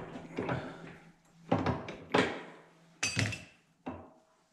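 Metal clanking from hand tools on an aluminium power steering pump held in a steel vise, as its high-pressure outlet fitting is worked loose: about five separate knocks, each ringing briefly.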